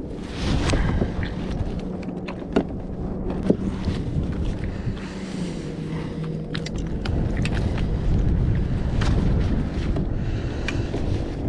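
Wind buffeting the microphone in a steady low rumble, with scattered small clicks and taps as a fishing rod, hook and line are handled.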